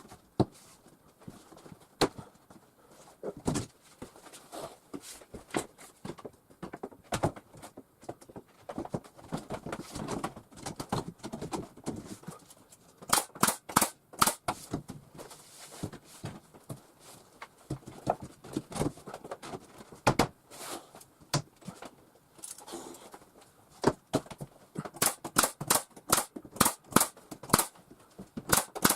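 Fasteners being driven into wooden lining boards: sharp knocks, some single and some in quick runs of four or five a second.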